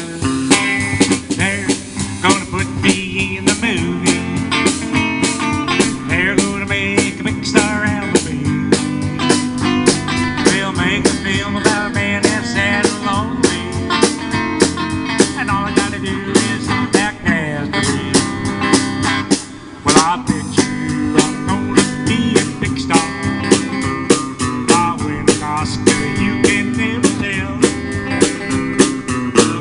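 Live electric guitar and drum kit playing an instrumental passage, the guitar picking a lead line over a steady drum beat. The music drops out briefly about twenty seconds in, then comes straight back.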